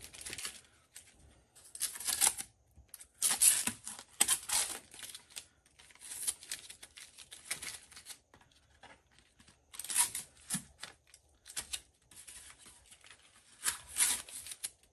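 Masking tape being peeled off a pickleball paddle's face and new edge guard, a series of short ripping pulls with pauses between.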